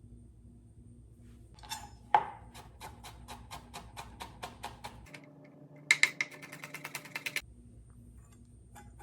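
A kitchen utensil tapping repeatedly against a bowl or board while preparing a marinade: steady taps about four a second, then a faster, louder run of about eight taps a second.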